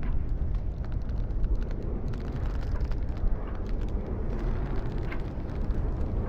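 Wind rushing with a steady low rumble, dotted with many small clicks and ticks.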